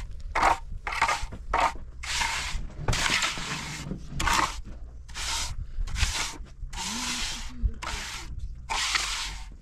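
A steel hand trowel scraping and smoothing wet cement in about a dozen quick strokes, faster at first and then in longer, slower sweeps.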